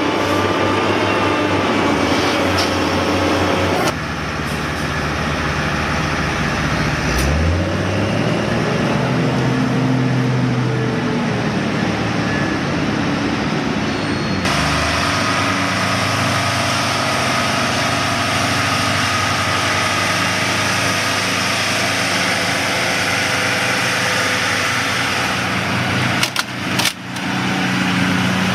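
Engines of heavy road-construction machinery running, with abrupt changes in sound where one clip cuts to the next. About seven seconds in, one engine revs up and drops back down.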